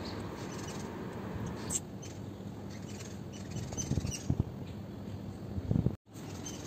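Small birds chirping in short, high, scattered calls. A soft low thump comes near the end.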